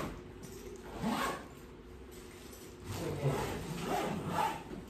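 Zipper of a soft suitcase being pulled shut in short strokes: once about a second in, then several strokes in the last two seconds.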